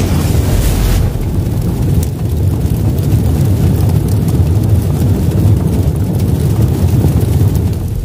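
Logo-intro sound effect: a loud, deep, continuous rumble like a drawn-out explosion, with a brighter rushing whoosh in the first second.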